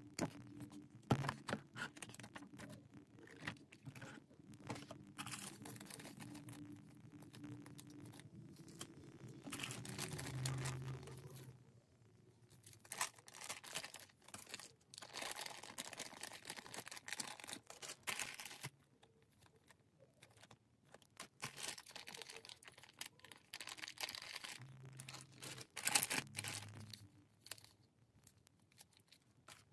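Plastic packaging bags crinkling and rustling as they are handled, in irregular bursts with short light knocks and clicks between them.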